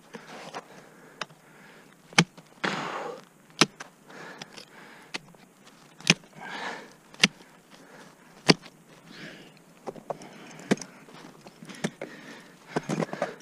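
Ice tools planted into snow-covered ice, each swing a sharp impact every second or two, with softer scraping and crunching of snow between strikes.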